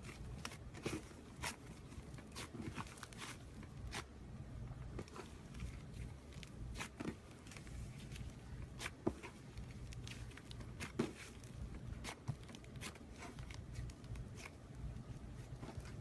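Slime being squished and stretched by hand, making irregular sticky clicks and crackles.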